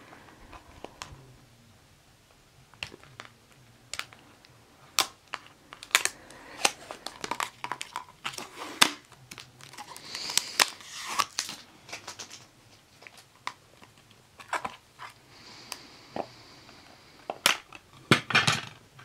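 Trading card pack being opened and its cards handled: crinkling and rustling of the wrapper with many sharp clicks of cards, busiest about halfway through and again near the end.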